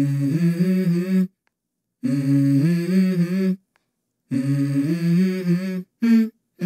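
A hummed vocal melody of held notes stepping up and down, in three short phrases that each cut off sharply into silence.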